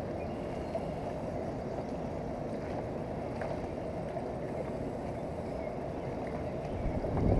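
Steady low rush of river water mixed with wind on the microphone, with a louder gust of wind buffeting the microphone near the end.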